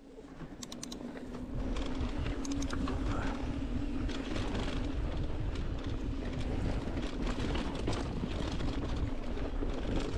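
Mountain bike rolling fast down a dirt forest trail: a steady rumble of tyres and air with frequent rattling clicks from the bike over bumps, and a low steady hum in the first few seconds. It fades in over the first second or two.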